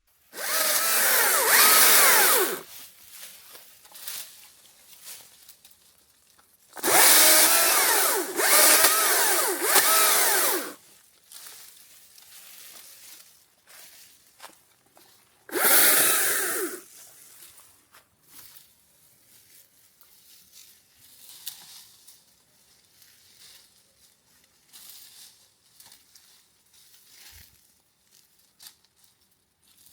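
Electric power tool motor run under load in three bursts: about two seconds, then about four seconds with a short dip, then about a second. Its whine wavers in pitch as it bites.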